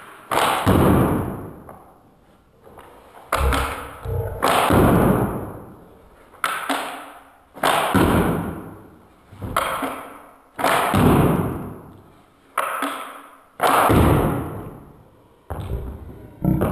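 Repeating bow firing five bolts in a row, about one every three seconds. Each shot is a sharp snap that fades out over a second or so, with a lighter click from working the action shortly before it.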